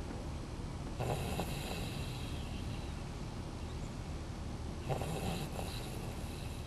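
A man snoring in his sleep, with a louder snoring breath about a second in and another about five seconds in.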